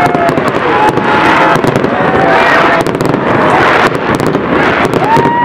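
Fireworks display: a dense, loud run of bangs and crackles from aerial shells bursting in glittering sprays.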